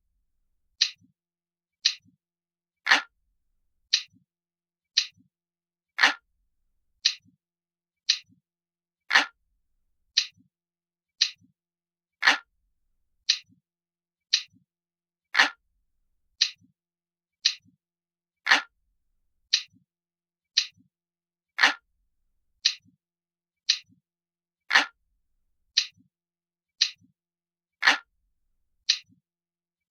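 Analog clock ticking steadily about once a second, each tick a sharp click followed by a faint lower knock; every third tick is a little louder.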